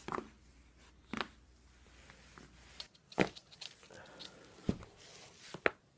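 Spinal joints in the neck and upper back popping during self-adjustment: about five short, sharp cracks spread over several seconds, the loudest about three seconds in.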